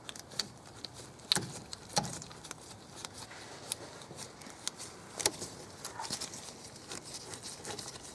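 Scattered light metallic clicks and taps at an irregular pace, from gloved hands unscrewing loosened rear brake caliper carrier bolts and handling the caliper, a little louder about a second and a half in and again around five seconds in.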